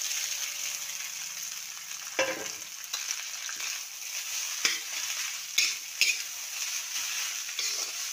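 Cooked rice frying in hot oil with onion and green chilli in a kadhai, sizzling steadily as it is stirred and tossed with a metal ladle. A few sharp clinks and scrapes of the ladle against the pan break in.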